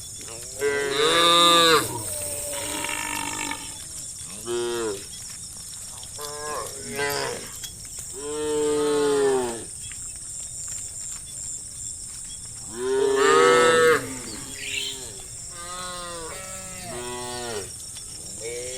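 Herd of cows mooing repeatedly, several calls in turn. Long, loud moos come about a second in, about eight seconds in and about thirteen seconds in, with shorter, quieter moos between them.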